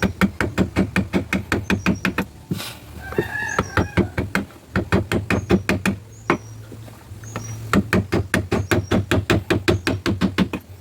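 Rapid, even taps of a mallet on a carving chisel cutting into hard ironwood, about six strokes a second in three runs with short pauses between. A chicken clucks briefly about three seconds in.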